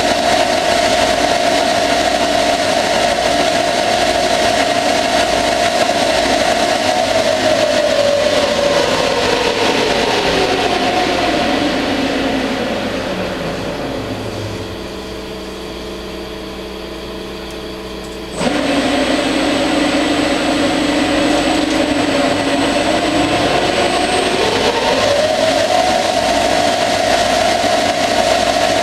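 CNC lathe turning a steel axle under coolant: a steady motor whine slows and drops in pitch to a quieter low hum about halfway through. A few seconds later the machine kicks back in sharply, and the whine rises again to its earlier pitch.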